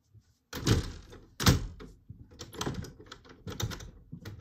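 Louvered wooden door being bumped and rattled from inside as someone tries to get it open, the door stuck shut: two heavy thuds about half a second and a second and a half in, then a run of lighter clicks and knocks.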